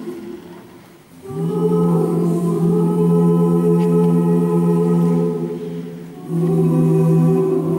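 Gospel choir singing long held chords. One chord dies away, a new one comes in about a second later and is held for several seconds before fading, and another chord begins about six seconds in.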